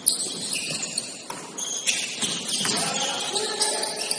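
Basketball shoes squeaking on a gym court during play, several short high squeaks scattered through, with players' voices calling out in the latter half.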